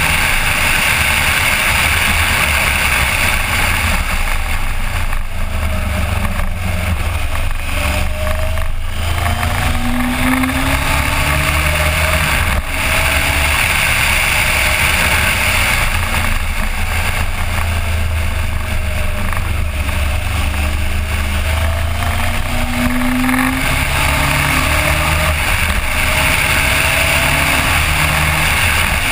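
Suzuki GSX1400 inline-four motorcycle engine running under way, with heavy wind noise over the microphone. The engine note rises again and again as the bike accelerates.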